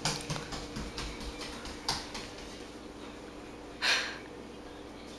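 Quick bare footsteps of a running toddler pattering on a hardwood floor, growing fainter as she runs off. A short breathy noise comes about four seconds in, over a faint steady hum.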